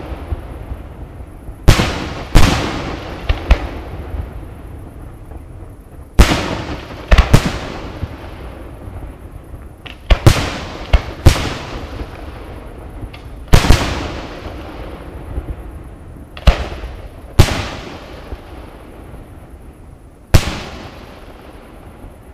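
Aerial fireworks bursting: loud bangs every few seconds, often two or three close together, each trailing off in a long echo.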